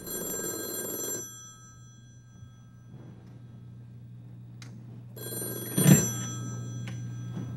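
Telephone ringing twice: the first ring ends about a second in and the second starts about five seconds in, each a steady, many-toned ring.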